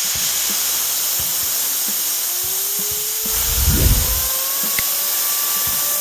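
Compressed-air blow gun letting out a loud, steady hiss of air from a homemade compressor's tank. The jet drives a plastic pulley wheel, whose faint whine rises steadily in pitch as it speeds up, with a short low rumble a little past halfway.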